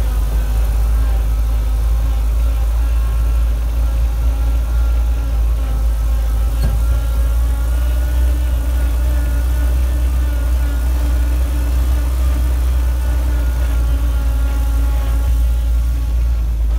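Land Rover Series II engine running steadily as the vehicle drives along at low speed, heard from inside the cab with a heavy low rumble. A single brief knock comes about seven seconds in.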